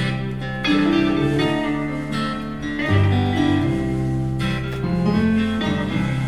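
Guitar-led instrumental introduction to a slow gospel song, with sustained chords and notes changing about once a second.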